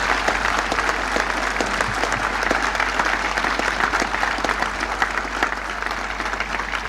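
Crowd applauding, the clapping easing off slightly toward the end.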